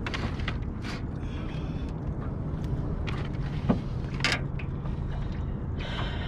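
Knocks and clatter of a large freshwater drum being handled and laid on a measuring board in a boat, over a steady low hum.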